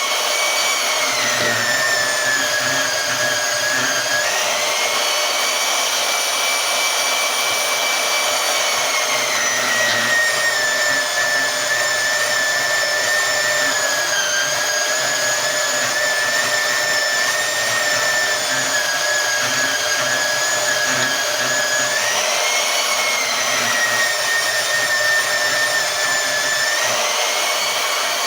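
Portable band saw running while cutting through thick steel: a steady motor whine with the blade grinding through the metal. The whine rises and drops in pitch several times as the motor speeds up and bogs under the load.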